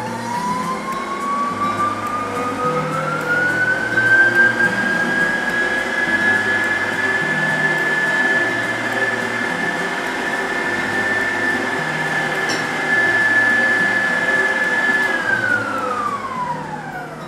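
Electric stand mixer's motor whining as its whisk beats cookie batter. The whine climbs in pitch over the first few seconds as it speeds up, holds steady, then falls away near the end as the mixer winds down.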